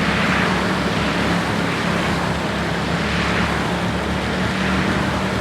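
Bus running on the road: a steady engine drone under a loud, even hiss of road noise that swells now and then.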